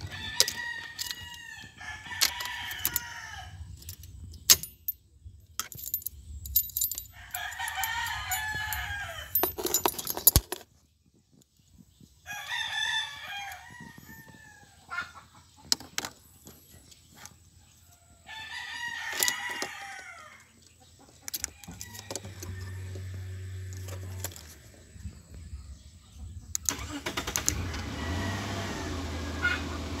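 A rooster crows several times, each crow a long wavering call, with a few sharp clicks in between. Near the end the car's engine starts on the remote starter and settles into a steady idle.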